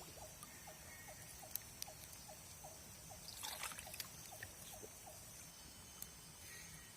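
A faint animal call, a short chirp repeated about three times a second. About three and a half seconds in comes a brief rushing noise, and a few small clicks fall here and there.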